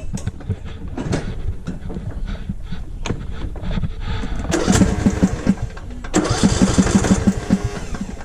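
Lawn mower engine cranking over without catching, in two bursts of even chugging with a short break between: the no-start condition. Irregular knocks come before the cranking.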